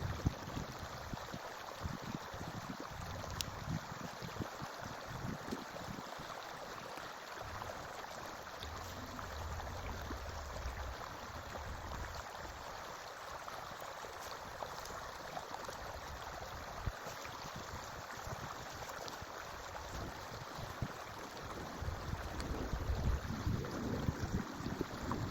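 A forest stream flowing steadily, with a continuous rushing, babbling water sound. Irregular low rumbles come and go under it, strongest near the start and again near the end.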